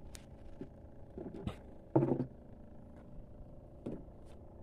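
Steady low motor hum, with a few light clicks from the handling of a spinning rod and reel. A short vocal sound comes about two seconds in.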